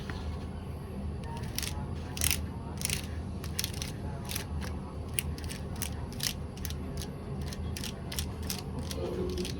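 Keys of a freshly lubricated Tecware mechanical keyboard being pressed: a run of irregular, sharp clicks starting about a second and a half in, over a steady low hum.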